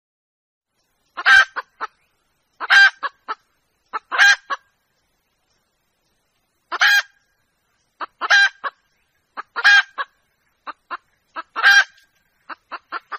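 Red junglefowl hen calling, a young hen's call to a rooster used as a lure call: a loud harsh note trailed by two or three short quick notes, repeated in about eight groups, starting about a second in.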